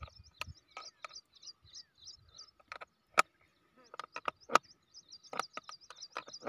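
Irregular sharp metallic clicks and clinks of a spanner on the bolts and nuts of a CID repair joint being tightened on a PVC pipe, louder and closer together in the second half. Birds chirp steadily in the background.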